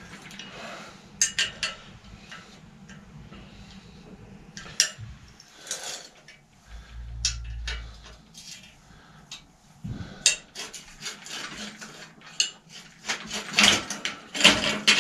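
Bicycle handlebar, its fittings and a hand wrench clinking and knocking metal on metal as the handlebar is unbolted and worked loose by hand: scattered sharp clicks and rattles, busiest in the last few seconds, with a brief low rumble about seven seconds in.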